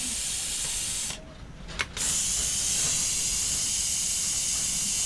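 Steady rain falling, a high hiss that cuts out abruptly about a second in and comes back just before the two-second mark.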